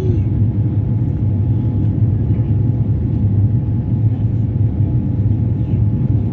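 Jet airliner cabin noise in the climb after takeoff: a steady, loud roar of engines and airflow, heaviest in the low range, with a faint steady hum above it.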